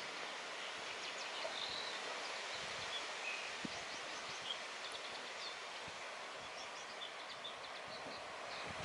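Outdoor ambience: a steady rustle of wind through grass and trees, with scattered short, high bird chirps.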